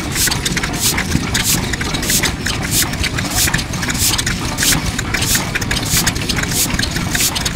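Yanmar Diesel Type HC 10 hp single-cylinder diesel engine (around 1950) running slowly and evenly, its exhaust puffing through the silencer in a steady rhythm of about three puffs every two seconds over a low rumble.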